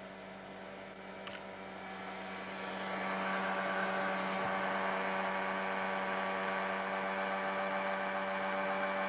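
Electric blender motor running, mixing a liquid cake batter. Its steady hum and whir grows louder over the first three seconds or so, then holds steady.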